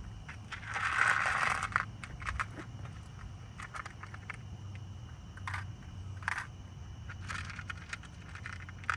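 Handling noises: a rustling scrape lasting about a second, starting just after the start, then scattered short clicks and scrapes over a steady low hum.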